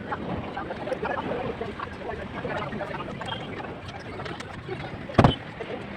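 Steady work-site noise with scattered small clicks and one loud knock about five seconds in.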